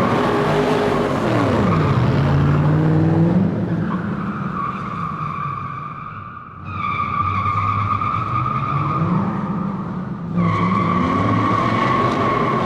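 Car tyres squealing in long skids on a hard floor inside a hall, with the engine revving down and up beneath. The squeal breaks off about three and a half seconds in, returns, fades briefly around the middle, and comes back strongly near the end.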